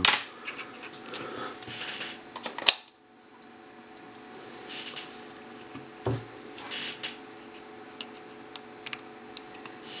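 Hands handling a small electronics board on a desk: scattered light clicks, taps and rustles over a faint steady hum, with one sharp click, the loudest sound, about two and a half seconds in.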